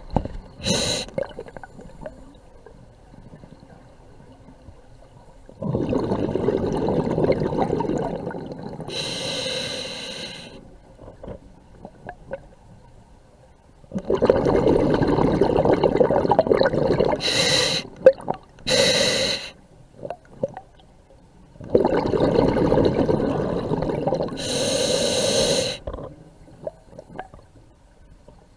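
Scuba diver breathing through a regulator underwater: three long bubbling exhalations, with short hissing inhalations through the regulator between them.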